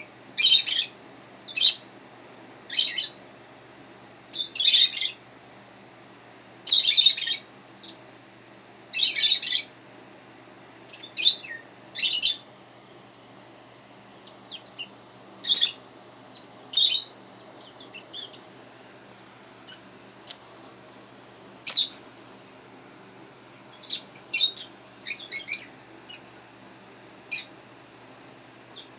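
Birds chirping in short, high-pitched bursts that come irregularly, about one every second or two.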